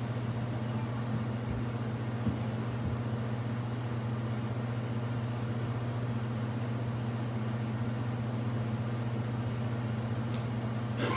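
Steady low electrical hum over an even hiss, with no voices or music: the room tone of the sanctuary's sound system between parts of the service.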